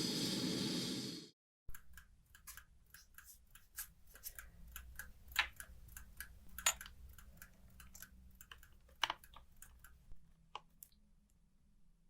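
A loud hiss that cuts off sharply about a second in, then the restored mechanical alarm clock ticking evenly, about four ticks a second, with a few louder clicks among the ticks; the ticking stops near the end.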